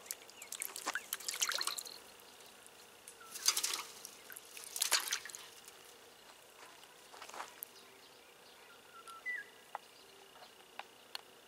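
Crucian carp splashing in an aluminium bucket of water, a few short separate splashes a second or two apart, the later ones weaker.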